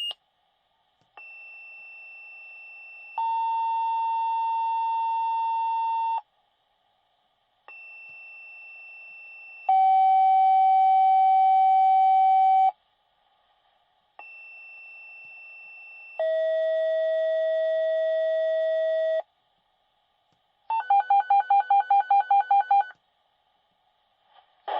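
Fire department dispatch pager alert tones over a radio channel: three sequential two-tone pages, each a steady higher tone for about two seconds followed by a louder, lower tone for about three, then a rapidly pulsing alert tone near the end. The tones set off the pagers of the fire companies about to be dispatched.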